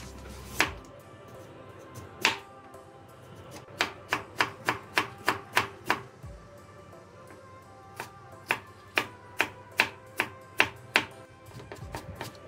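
Chef's knife knocking on a wooden cutting board while slicing carrot into thin strips: two single cuts, then two runs of quick strokes at about three a second, with faster mincing starting near the end. Faint background music runs underneath.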